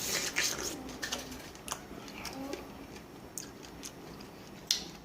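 Irregular small crunching clicks from a piece of fresh pineapple and coarse salt being handled.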